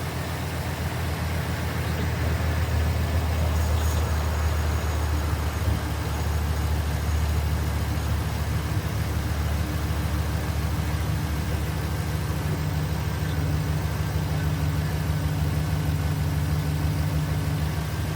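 High-mileage pickup truck engine idling steadily with an even low hum.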